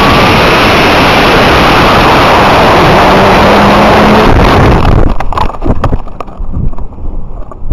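Onboard microphone of an Estes Cherokee-E model rocket in flight: a loud, steady rush of the Estes D12 motor's thrust and air blasting past the body tube. About five seconds in it drops abruptly to gusty wind buffeting with scattered knocks.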